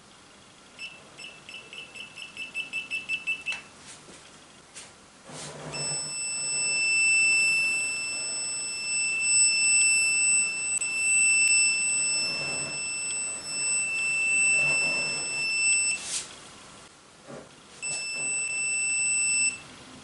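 Acoustic non-contact voltage testers beeping. First comes a rapid string of beeps that grows louder as a tester nears a live lamp. Then a steady electronic tone sounds for about ten seconds, and a shorter one comes near the end. The steady tone at the bulb signals voltage there with the plug inserted the wrong way round, so the lamp stays live even when switched off.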